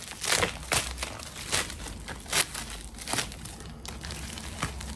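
Crinkly packaging being handled and torn open by hand: irregular crackling and crinkling with a few sharper tearing sounds.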